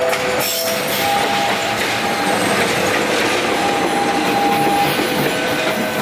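KAI CC 206 diesel-electric locomotive running light past at close range: a steady, loud mix of engine and wheel-on-rail noise, with thin whining tones coming and going over it.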